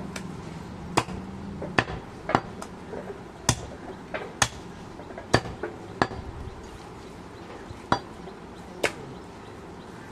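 Heavy butcher's cleaver chopping goat meat on a round wooden log chopping block: about a dozen sharp chops at uneven intervals.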